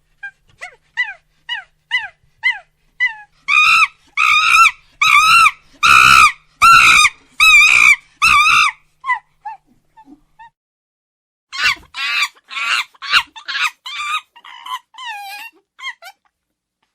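A monkey calling in a run of short, falling, evenly spaced notes that build into louder, longer wavering calls, about one and a half a second. After a pause of a couple of seconds comes a second bout of the same loud calls, tailing off near the end.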